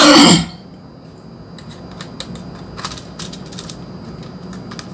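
The plastic case of a pocket calculator cracks loudly as it is pried open, a sharp burst lasting about half a second right at the start. It is followed by scattered light clicks of loose plastic keys and parts shifting.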